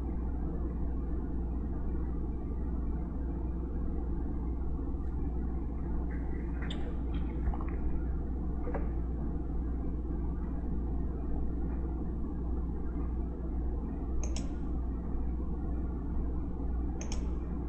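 Steady low background rumble and hum, with a few faint, short clicks scattered through it.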